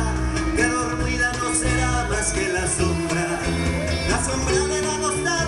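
Live band playing a Latin-style song on acoustic guitars, electric bass and cajón, with long held melody notes over a steady beat.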